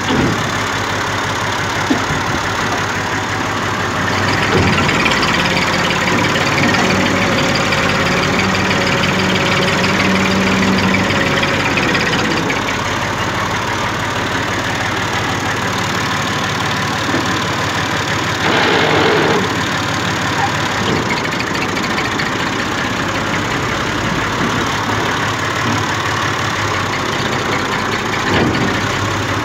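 Diesel tractor engine running steadily under load, with a brief louder surge a little over halfway through.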